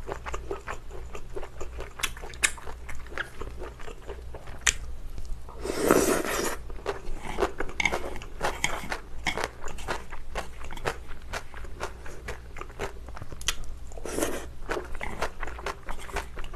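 Close-miked chewing of a mouthful of kimbap and spicy glass noodles: wet, crunchy chewing with many small clicks, and a louder breathy burst about six seconds in and another about fourteen seconds in.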